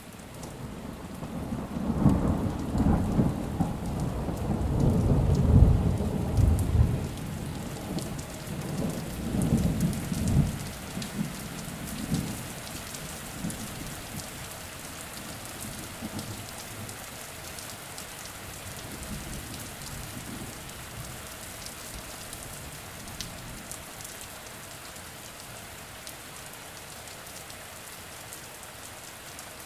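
A long roll of thunder over steady rain. The thunder builds about two seconds in, is loudest a few seconds later and rumbles away by about twelve seconds in, with fainter rumbles after that, while the rain hisses on.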